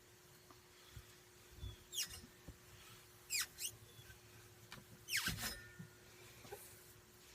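A rag being rubbed along a KYB fork's inner tube, squeaking in four or five short chirps that fall in pitch.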